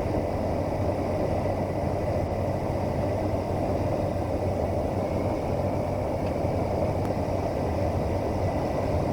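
Steady drone of a Cessna 208 Caravan's single turboprop engine and propeller in flight, heard inside the cockpit, with a faint steady high whine over it.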